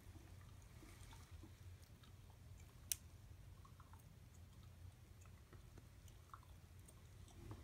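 Near silence: room tone with a low hum and faint scattered ticks, and one sharp click about three seconds in.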